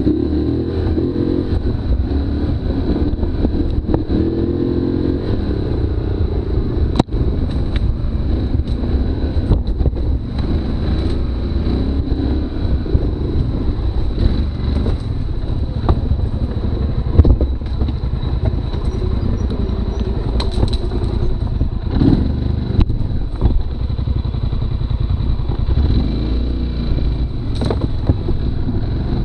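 Polaris Sportsman ATV engine running hard, revving up and down as the quad is ridden over a rough forest trail. Knocks and rattles from the machine jolting over bumps, with a sharp knock about seven seconds in.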